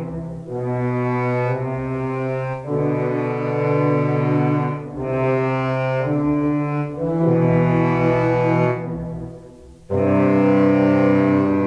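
Low woodwind section of the Spitfire Albion ONE sample library ('Woods Low' patch, long articulation) playing a slow series of held low chords, about eight of them, each lasting one to two seconds. The sound fades briefly late on, then a final, louder chord comes in.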